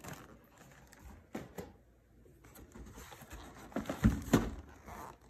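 Cardboard packaging being handled: a boxed pack of biscuits rubbed and shifted inside a cardboard shipping carton, with light scraping and rustling and a few soft knocks, the two loudest about four seconds in.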